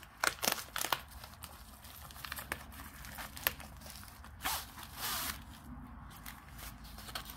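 Plastic bubble mailer crinkling and crackling in the hands as it is opened. About halfway through there is a longer rustle as the paper-wrapped canvas roll is slid out of it.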